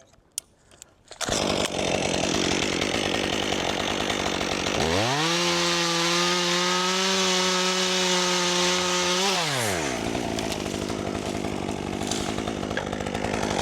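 Chainsaw starts running about a second in. It revs up to a steady full-throttle pitch for about four seconds, then drops back to a lower speed.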